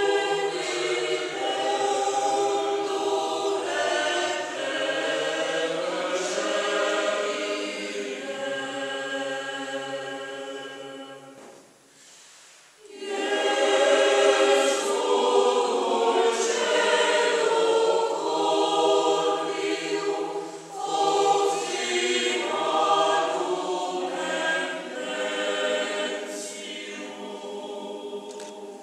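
Mixed choir of men's and women's voices singing in parts. The singing breaks off briefly about twelve seconds in, comes back louder, then grows softer toward the end.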